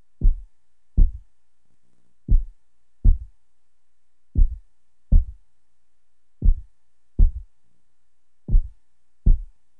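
Heartbeat sound effect: deep double thumps (lub-dub), five pairs about two seconds apart, over a faint low hum.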